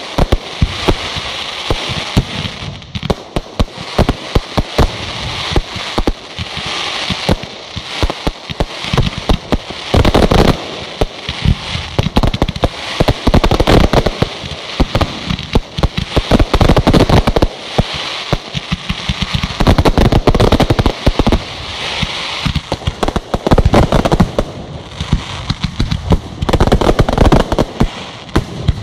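Aerial fireworks going off continuously: dense rapid bangs and crackling, with clusters of heavier booms every few seconds.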